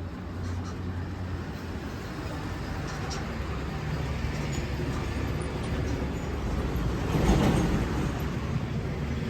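Road traffic: a steady low hum of running vehicle engines, with one vehicle passing close and growing louder to a peak about seven seconds in before fading.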